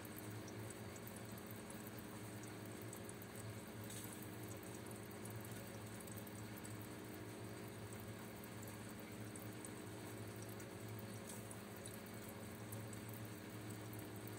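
Aquarium aeration: water bubbling from an air line, over a steady low hum from the tank's pump.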